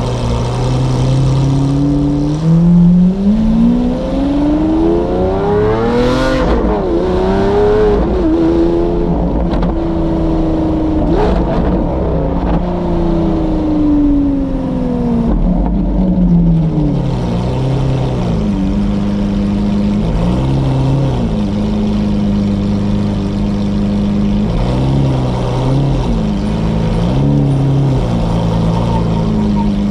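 Lamborghini Aventador SVJ's V12 with a Novitec exhaust, pulling away from idle. Its pitch climbs hard to a sharp break at a gear change about six seconds in, climbs again and holds at a steady cruise, then falls as the car slows, settling to a low drone with a few short throttle blips near the end.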